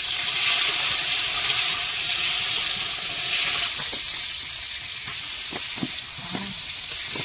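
Hot oil sizzling steadily in a cooking pot as food fries, louder for the first three and a half seconds and then settling, with a few faint knocks near the end.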